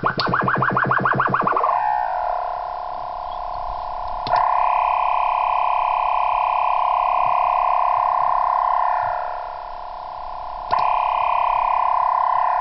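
Electronic tones from the WP20 device: a rapidly pulsing tone that winds down and stops about two seconds in, then a steady chord-like tone switched on with a click about four seconds in, fading out around nine seconds, and switched on again with a click near the end.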